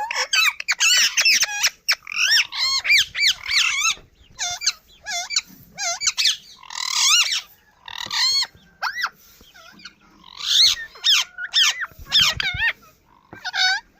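Parrot chicks squawking in quick, repeated calls that rise and fall in pitch, coming in bursts: the begging of young being fed by their mother.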